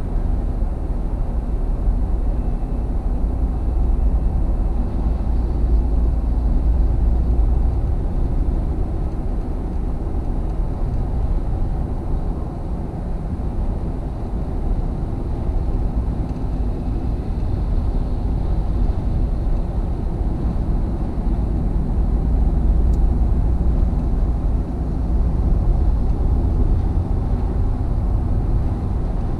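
Car interior noise at highway speed: a steady low rumble of road, tyres and engine heard inside the cabin.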